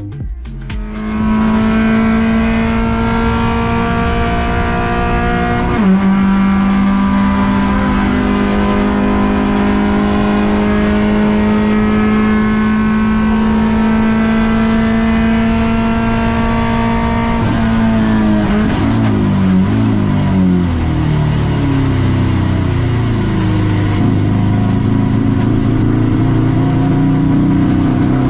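Honda Brio race car's engine running hard at steady revs. The pitch steps down about six seconds in and holds. Around eighteen seconds in the revs drop unevenly, then slowly climb again.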